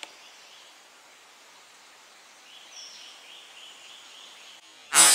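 A single gunshot fired at a squirrel in the treetops, coming suddenly about five seconds in and echoing away over a second or two. Before it there is only faint forest ambience with soft bird or insect chirps.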